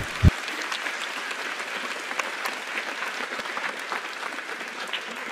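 Audience applauding, the clapping of many hands, with one short low thump just at the start.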